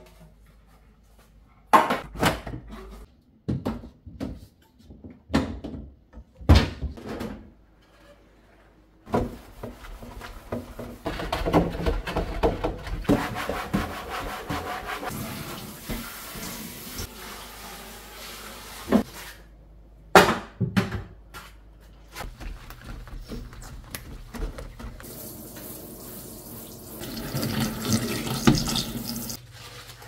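Clear plastic refrigerator drawers and shelves knocking and clattering as they are lifted out and set down, then a kitchen tap running steadily as the bins are scrubbed with dish soap and rinsed, with a couple of sharp knocks of plastic against the sink and a louder rush of water near the end.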